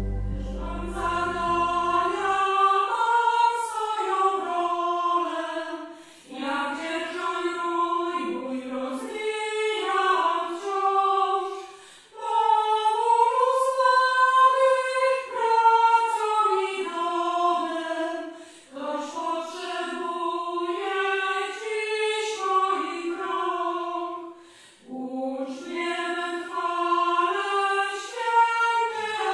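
Choir singing unaccompanied, in slow phrases of about six seconds with short breaks between them. A low sustained musical tone underneath fades out in the first two seconds.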